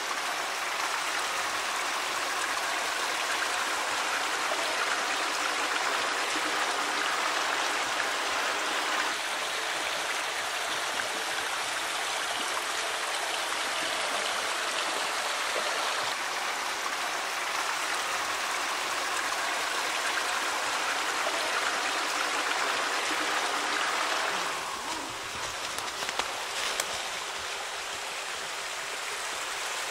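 Small woodland stream running, a steady rush of water that turns quieter about 24 seconds in.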